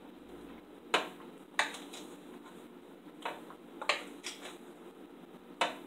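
A metal teaspoon clicking against a container as descaling powder is scooped out and measured, about six sharp, separate clicks.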